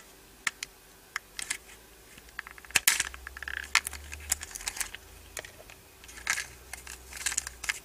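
Hard plastic toy car being pried open by hand: scattered clicks and taps of plastic parts and fingernails, the sharpest about three seconds in.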